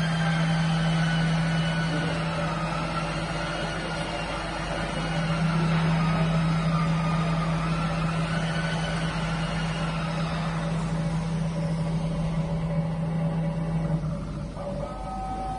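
Alca twin-spindle CNC router running: a steady low hum with whining drive-motor tones that rise and fall as the spindle head moves down to the tool-length sensor for tool zeroing. The hum stops about 14 seconds in, leaving steadier higher-pitched tones.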